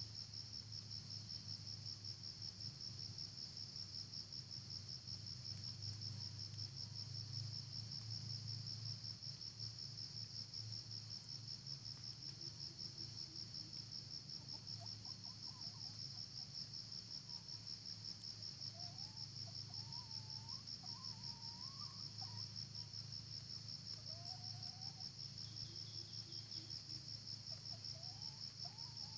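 Steady insect chorus, a fast-pulsing high trill that never lets up, over a low steady hum, with a few faint short chirps in the middle.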